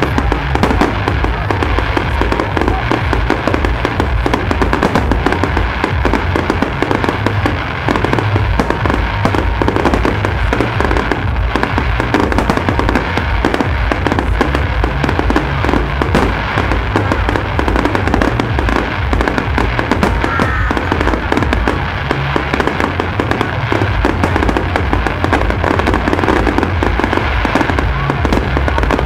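Fireworks display in a continuous barrage: shells bursting one after another without a break, a dense run of bangs and crackle over a deep rumble.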